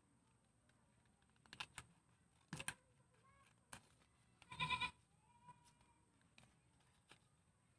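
Scissors snipping through folded art paper, a few faint clicks. About halfway through comes a short, high-pitched animal call with a clear tone, louder than the snips, and a fainter one follows a moment later.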